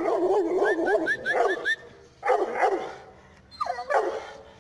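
Bully Kutta, a mastiff-type dog, vocalizing in barks and whines: one long wavering call, then two shorter ones.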